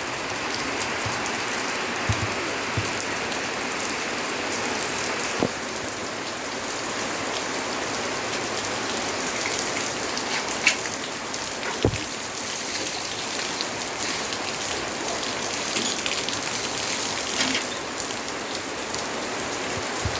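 Steady rain falling and pattering on surfaces, a dense even hiss, with a few sharp knocks now and then.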